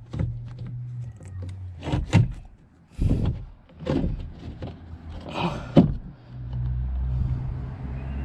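A replacement car door speaker being fitted into the inner door panel: a series of knocks, taps and scrapes as it is lined up and slotted in, the sharpest knock near the end, over a steady low hum.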